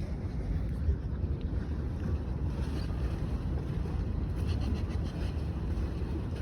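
Wind noise on the microphone over a steady low rumble, with no distinct events.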